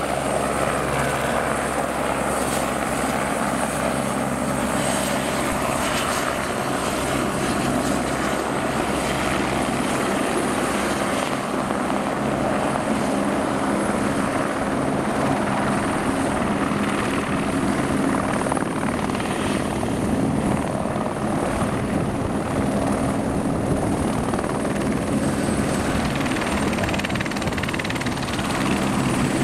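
Eurocopter AS350BA Écureuil helicopter hovering low and setting down, with steady rotor noise under the high whine of its Turbomeca Arriel 1B turboshaft. Near the end the whine drops a little in pitch.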